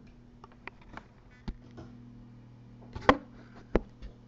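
Scattered small clicks and knocks of a Native Instruments Maschine MK1 controller being handled and opened up, with two louder sharp knocks about three seconds in, over a low steady hum.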